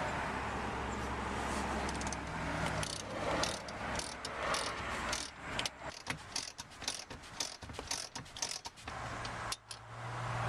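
Socket ratchet clicking in quick, uneven runs as an 18 mm bolt holding the seat-back frame is turned out, starting about three seconds in.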